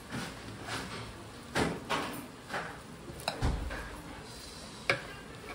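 A hand mixing thick gram-flour (besan) paste in a steel bowl: irregular squishing strokes about every half second, with a couple of sharp clicks and a dull thump partway through.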